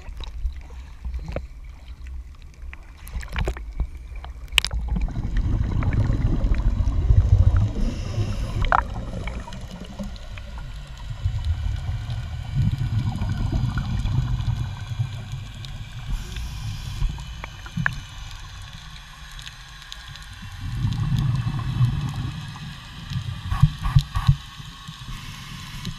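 Water slapping and splashing against an action camera at the sea surface, then underwater scuba breathing: three long, low bubbling rumbles of exhaled air from a regulator, several seconds apart, with a few sharp knocks near the end.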